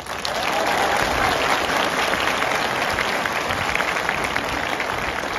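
A large crowd of supporters applauding. The clapping starts suddenly and holds steady throughout.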